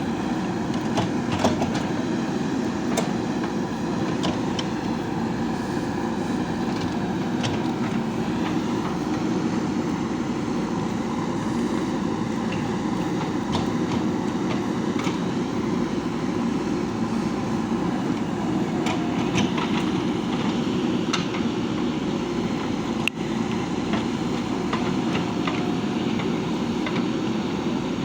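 JCB 3DX backhoe loader's diesel engine running steadily under work, with scattered short metallic clanks and clicks from the machine.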